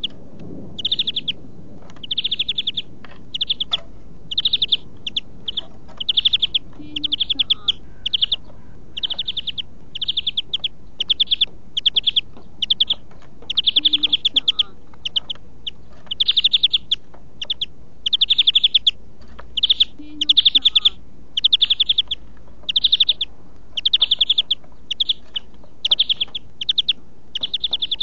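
European greenfinch singing: short bursts of rapid trilled notes, high-pitched, repeated about once a second with brief gaps between them.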